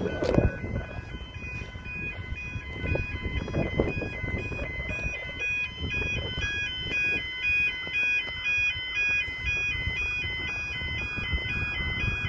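Railway level-crossing warning bells ringing, an electronic tone repeating steadily and stepping between two pitches as a train approaches, over gusty low rumble with a single knock near the start.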